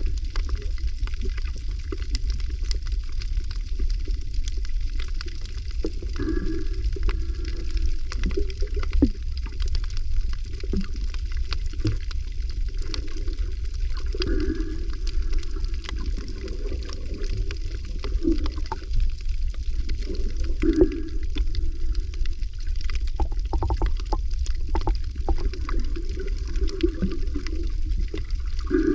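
Water sloshing and gurgling close to the microphone over a steady low rumble, with scattered clicks and swells every few seconds.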